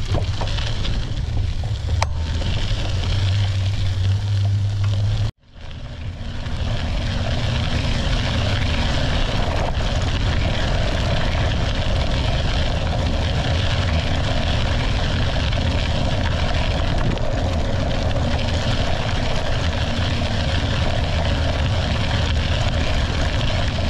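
Steady wind buffeting the microphone with tyre rumble from a bike trailer rolling along a dirt path. The sound cuts out for a moment about five seconds in, then comes back at the same level.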